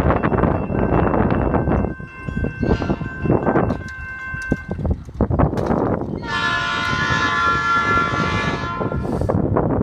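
Train horn sounding for the grade crossing: fainter blasts early on, then one long blast of about three seconds in the second half. Under it is a loud, uneven low rumble with crackling.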